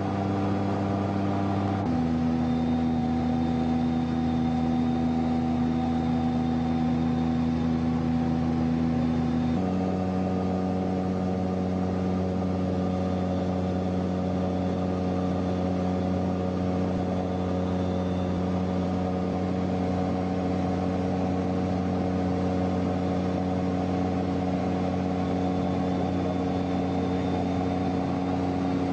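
Shadow microlight aircraft's engine running steadily, a constant pitched drone. Its pitch changes abruptly to a new steady note about two seconds in and again near ten seconds.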